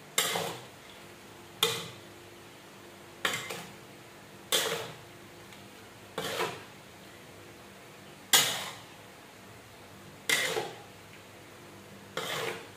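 Metal spatula scraping and tossing noodles in a large aluminium wok: about eight strokes, a second and a half to two seconds apart, each a short scrape that fades quickly. This is the noodles being stir-fried and mixed evenly with the vegetables.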